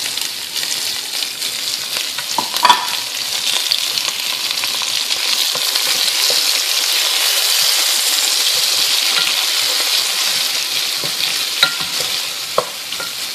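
Sliced sausage, onions and bell peppers sizzling steadily in hot olive oil in a pot, with a few knocks as they are stirred with a wooden spoon, the loudest about three seconds in.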